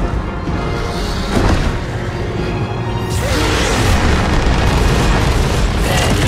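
Film soundtrack: orchestral score with deep booms. About three seconds in, a dragon's fire breath comes in as a loud rushing blast of flame with explosions.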